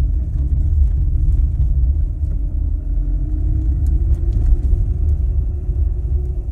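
Lada Granta driving over bumps, heard from inside the cabin: a steady low road rumble with the engine hum rising slightly, and no squeaking from the car, whose squeaks have been cured.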